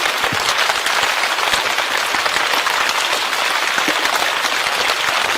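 Steady heavy rain: a dense, even patter of countless drops.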